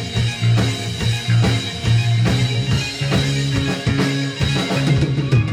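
Live rock band playing: a drum kit keeps a steady beat under electric guitar and bass, with a quick run of drum hits near the end.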